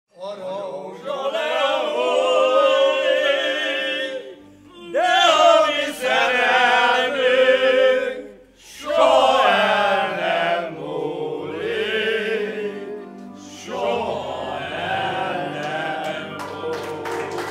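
A group of men singing together in long phrases, with short breaks about four and eight and a half seconds in.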